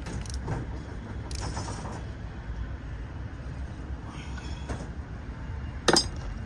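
Hand tools working on the bolts of a timing chain tensioner: faint scrapes of metal on metal over a steady low rumble, and one sharp metallic clink near the end.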